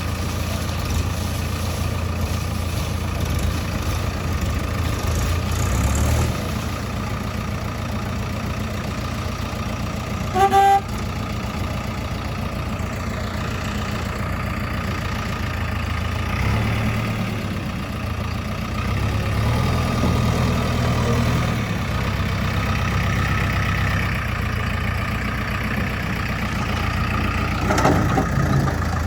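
Heavy diesel engine idling steadily, with a single short vehicle-horn toot about a third of the way in.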